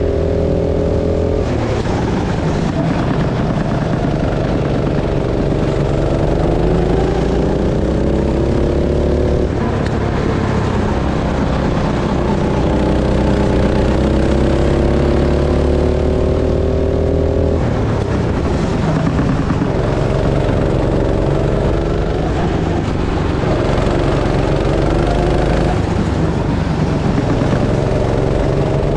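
Go-kart engine running hard around a track. Its pitch climbs slowly along each straight and drops sharply several times as the throttle is lifted for corners.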